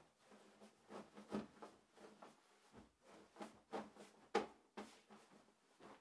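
Bedding rustling as a duvet and pillows are handled and smoothed: a run of soft, irregular fabric swishes, the strongest about a second and a half in and again a little past four seconds.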